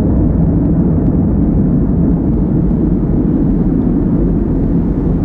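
Boeing 747-400F freighter's four jet engines at takeoff power as the aircraft climbs away after departure: a loud, steady, deep rumble.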